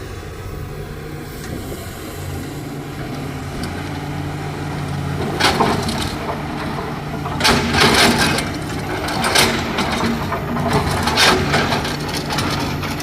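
Diesel engine of a JCB 3DX backhoe loader running steadily at work. About halfway in, loads of mud and soil crash down in several loud, crunching bursts as they are dumped into a tipper truck's steel body.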